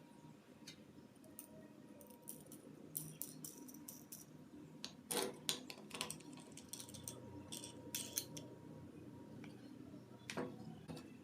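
Faint scattered clicks and light metallic clinks, as of small parts or tools being handled, loudest in a cluster about halfway through, over a faint low hum.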